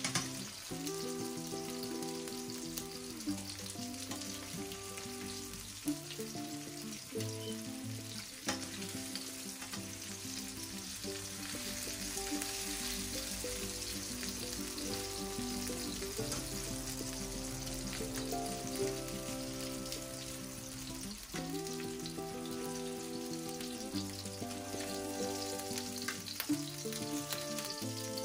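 Salmon pieces sizzling steadily in hot oil in a frying pan, with a few clicks of metal tongs as the pieces are turned and lifted out. Soft background music with held chords plays underneath.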